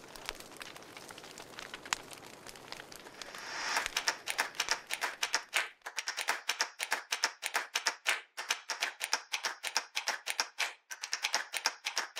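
Faint crackling at first, then, from about three and a half seconds in, a rapid run of sharp typing clicks, several a second: a typing sound effect that goes with on-screen text being typed out.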